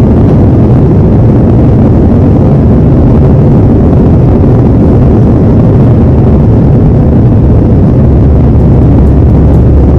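Airbus A321 jet engines and rushing airflow during takeoff: a loud, steady, low rumble with no change in pitch.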